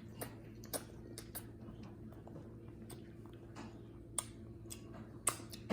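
Scattered light clicks of forks against plates during a spaghetti meal, irregular and a second or so apart, over a steady low hum.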